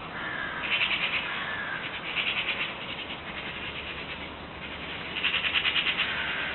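Small songbirds singing: three bursts of rapid trilling, each about a second long, with a few thin whistled notes between them.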